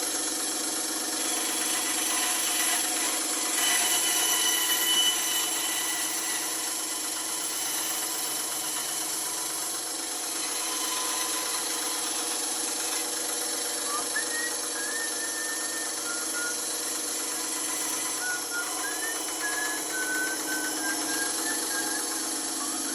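Bandsaw running steadily with its motor hum and blade noise, with slight swells in loudness as it works. In the second half, a faint wavering high tone comes and goes.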